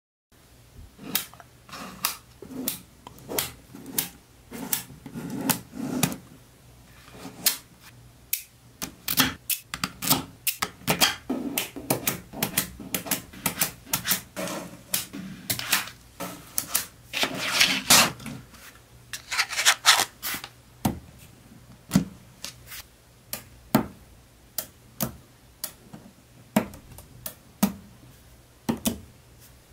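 Small neodymium magnet balls clicking and snapping together as rows are pulled off a block and pressed into place: many sharp clicks in irregular succession, with two denser rattling runs past the middle.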